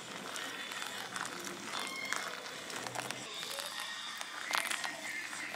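Hot water trickling in a thin stream onto coffee grounds in a paper filter dripper, a steady splashy pour for a hand-drip coffee.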